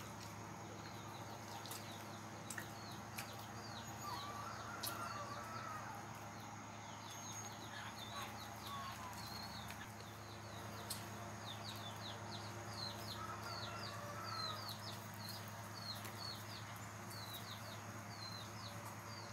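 Small birds chirping in quick, repeated high notes over a steady low hum, with a few scattered clicks.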